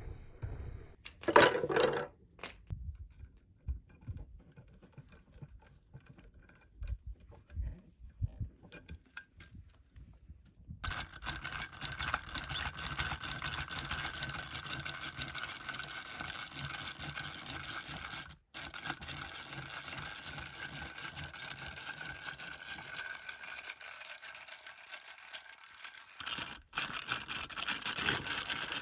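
A few sharp knocks and scattered clatters, then, about ten seconds in, a drill starts and runs steadily as a twist bit bores holes through rib bones laid on a wooden board, with two brief breaks.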